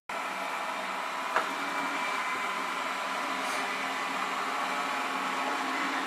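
Ecovacs Deebot T9+ robot vacuum running as it cleans a parquet floor: a steady whir of its suction fan and brushes, with a brief click about a second and a half in.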